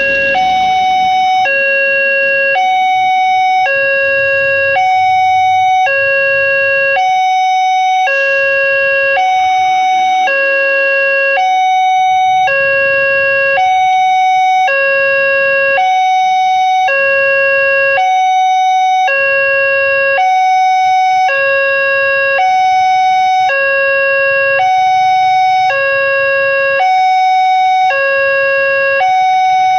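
Railway level-crossing electronic warning alarm, alternating steadily between a low and a high tone. It signals that a train is approaching the crossing.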